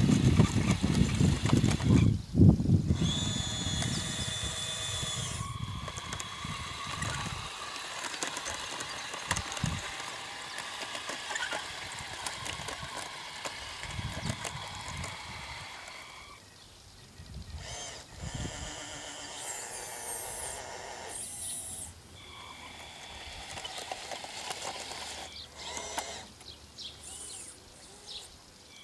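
Small electric motors and gearboxes of a radio-controlled tracked loader whining, starting, stopping and changing pitch as the model drives and moves its arm. A heavy low rumble fills the first several seconds.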